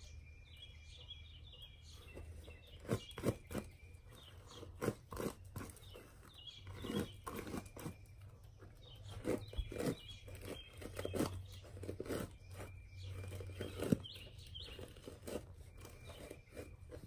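Detangling brush being pulled through thick, coily 4C hair in a series of short, irregular strokes.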